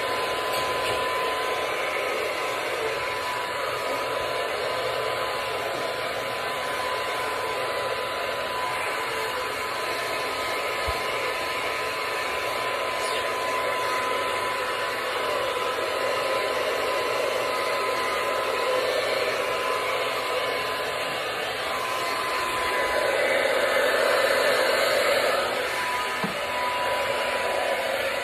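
Hand-held hair dryer running steadily, blowing on a small dog's coat, with a thin steady whine over the rush of air that swells a little near the end.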